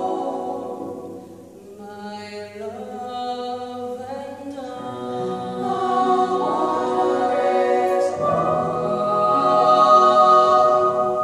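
Small girls' vocal ensemble of eight singing in close harmony: a held chord fades about a second in, then voices come back in one after another and build to a full, loud held chord near the end.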